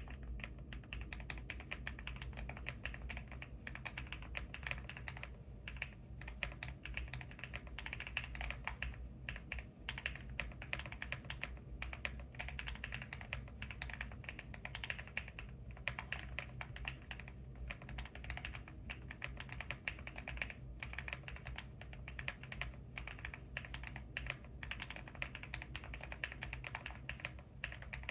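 Continuous typing on a GMK67 mechanical keyboard with lubed Akko Silver linear switches and PBT Cherry-profile keycaps, tape- and foam-modded: a dense, uneven stream of key clacks with no pauses longer than a moment.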